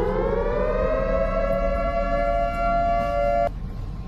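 A siren wailing: its pitch rises over the first two seconds, holds steady, then cuts off abruptly about three and a half seconds in. A steady rushing noise runs underneath.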